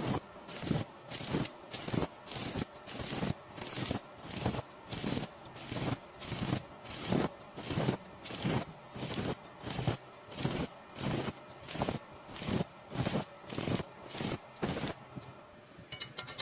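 ARCCAPTAIN MIG welder arc crackling in short, evenly spaced bursts, about two a second, as in stitch welding. The bursts stop about fifteen seconds in.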